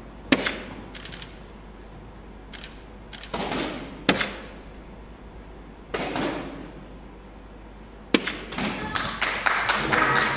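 Soft-tip darts striking a Phoenix electronic dartboard three times, about four seconds apart. Each sharp hit is followed by the machine's electronic scoring sound effect. After the third dart the machine plays a longer electronic sound as the game moves to the next round.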